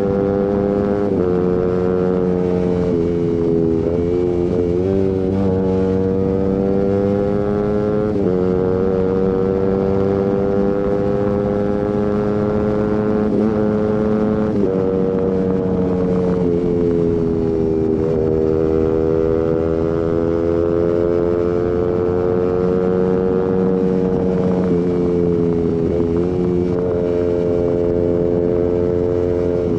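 Suzuki GSX-R150's single-cylinder four-stroke engine running through an aftermarket Prospeed exhaust with Proliner header, heard under way. The exhaust note holds fairly steady, slowly climbing and easing in pitch with several short dips along the way.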